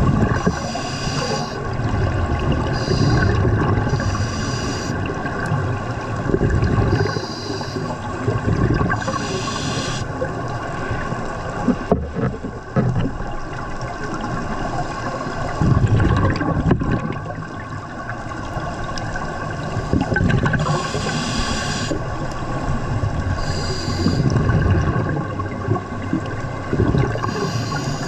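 Scuba regulator breathing heard underwater: hissing inhalations every few seconds, each followed by a gurgling rumble of exhaled bubbles, over a steady hum.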